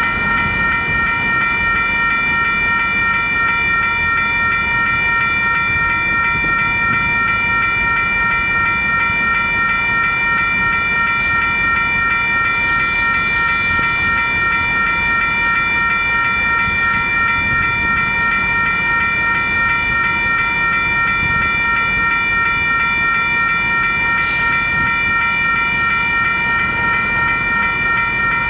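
Union Pacific train rolling past with a steady low rumble, under a high ringing tone of several pitches that holds unchanged throughout. A few brief hisses come about 11, 17 and 24 seconds in.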